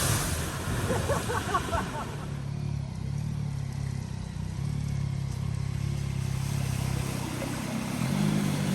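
A vehicle's engine running at low revs with a steady low hum, as a rush of water dies away in the first two seconds; the engine note rises slightly about eight seconds in.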